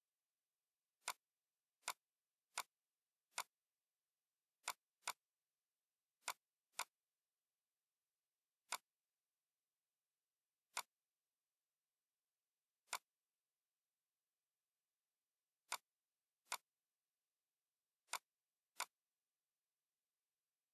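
Computer mouse clicks: about fifteen single sharp clicks at irregular intervals, some in quick pairs, with nothing else heard between them.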